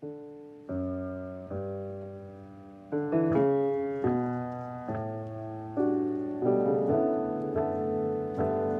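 Solo piano playing slow chords, each struck and left to ring and fade before the next; the chords come closer together and fuller in the second half.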